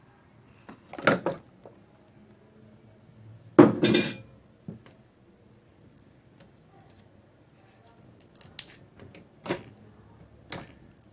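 Glass pot knocking and clinking against a table as the slime is handled: a knock about a second in, a louder one about three and a half seconds in, and a few small clicks near the end.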